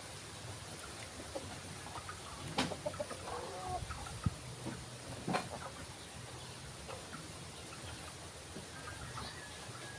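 Chickens clucking in the background, with a couple of short sharp knocks or splashes.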